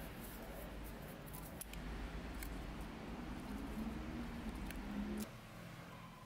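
Wooden spoon stirring strips of lemon peel and sugar in a glass bowl, with soft scraping and light scattered clicks of the spoon against the glass.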